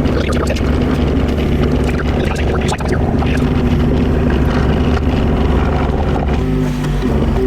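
Mini excavator's diesel engine running steadily under load, with a few knocks and scrapes in the first three seconds and a brief change in engine pitch near the end.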